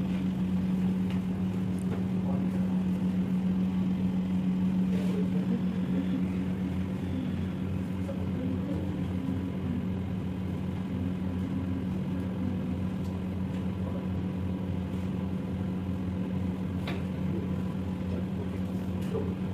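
Steady low hum throughout, with a couple of faint clicks.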